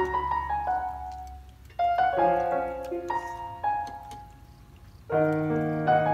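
Background piano music: notes and chords struck and left to ring out, with a new phrase about two seconds in and another about five seconds in.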